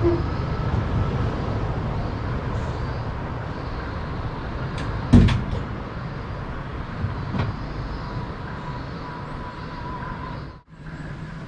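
A steady low rumble with one sharp, loud knock about five seconds in and a lighter knock about two seconds later.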